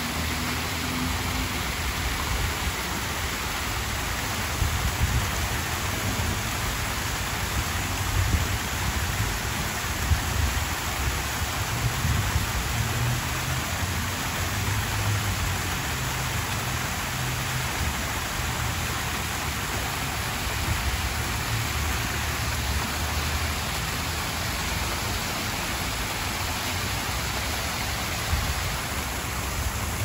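Water cascading down an artificial rock waterfall and splashing into its pool: a steady rushing hiss, with an uneven low rumble beneath it.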